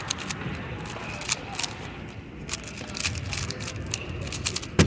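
Busy hall ambience: a low murmur of background voices with many scattered sharp clicks and taps, and one louder knock near the end.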